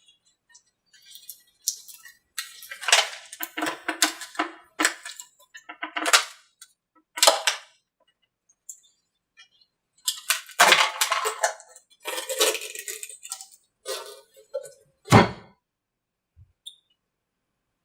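A newly laid-up male mold being worked free of its female fuselage mold: clusters of sharp cracks, creaks and clicks as the laminate lets go of the mold surface, with a single heavy knock about fifteen seconds in.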